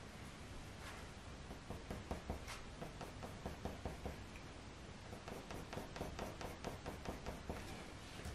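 Faber-Castell Polychromos coloured pencil making quick, short strokes on hot-press watercolour paper, a run of light scratches several a second that starts about a second and a half in and stops near the end.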